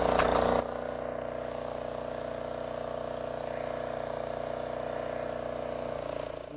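Briggs & Stratton DOV engine on a wheeled string trimmer, just pull-started and running steadily. It becomes quieter about half a second in, then keeps an even note before fading out near the end.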